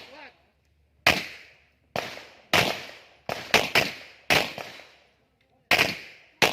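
Pistol shots from several shooters on a firing line: about nine sharp reports at uneven intervals, some in quick succession, each echoing off briefly.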